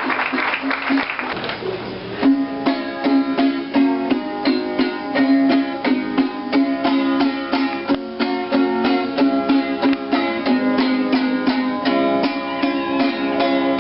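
Instrumental music with quick plucked-string notes over a steady beat, starting about two seconds in after a brief stretch of noise: the introduction to a children's song about going to a fair.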